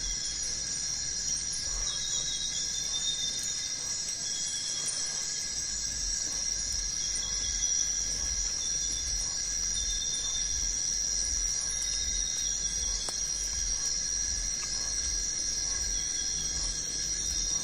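Tropical forest insect chorus: a steady high-pitched drone with short chirps repeating every second or two.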